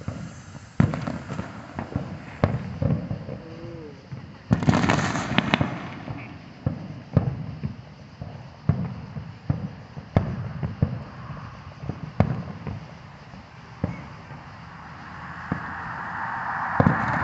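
Aerial fireworks shells bursting: a string of sharp booms at uneven intervals, with a dense stretch of crackling about five seconds in. Near the end a rising rush of noise builds under the booms.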